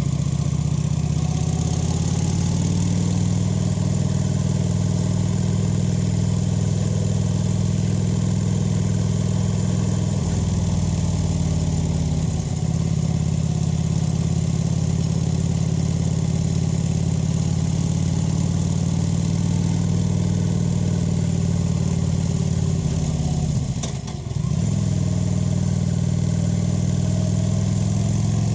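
Kawasaki VN 900's V-twin engine and exhaust running steadily while the motorcycle is ridden. The engine note dips briefly about halfway through and again near the end, then picks up again.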